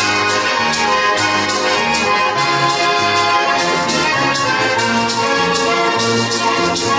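Instrumental break of a sung song: band music with a held melody over a steady, regular bass and beat.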